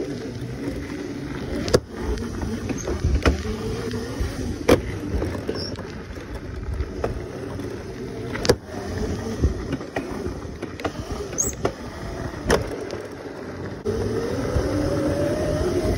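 Razor electric mini dirt bike riding over a dirt road: the electric motor's whine under a rough rumble from the tyres and frame, with a few sharp knocks from bumps. Near the end the whine rises in pitch as the bike speeds up.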